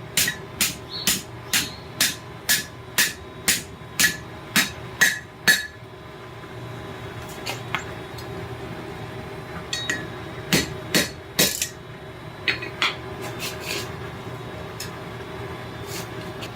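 Hand hammer striking a hot railroad spike being forged into a chain hook, about two blows a second for the first five and a half seconds, then scattered lighter blows as the curve of the hook is adjusted.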